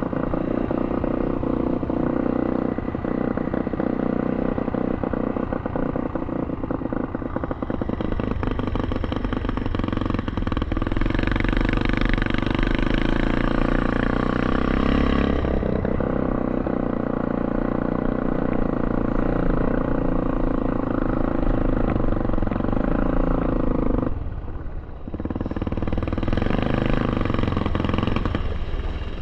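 Engine of a three-wheeled ATV being ridden at low speed over dirt and gravel. It runs steadily, with the throttle eased off briefly near the end before it picks up again.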